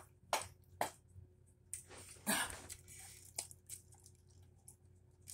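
Someone chewing crisp raw lettuce: a few short sharp crunches and soft mouth sounds, with a longer noisy rush a little past two seconds in.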